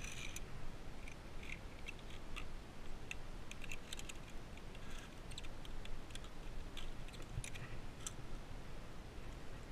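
Irregular light metallic clicks and clinks of via ferrata climbing gear, such as carabiners and hands on the steel safety cable, as the climber moves along it.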